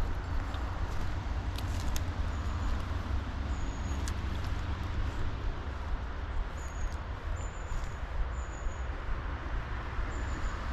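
Small stream flowing: a steady rush of water with a deep low rumble underneath, and a few short high chirps over it.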